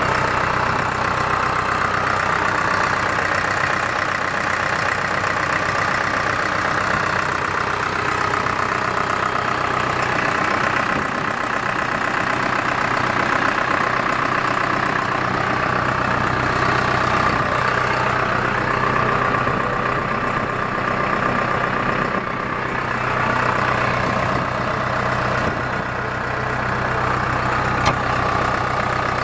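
New Holland T5050 tractor's four-cylinder diesel engine idling steadily.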